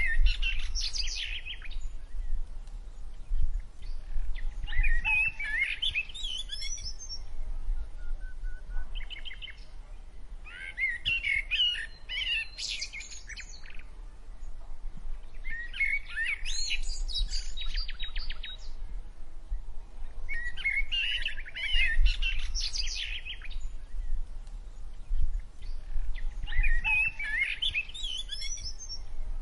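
A songbird singing phrases of chirps and trills, one every five or six seconds, over a steady low rumble.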